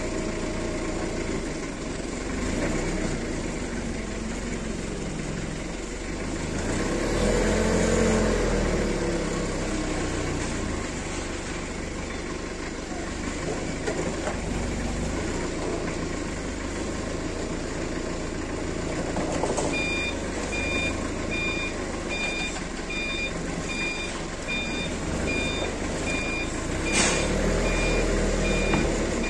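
Forklift engine running steadily, revving up and back down about a quarter of the way in and again near the end. From about two-thirds in, the reversing alarm beeps at an even pace, and there is a sharp clack shortly before the end.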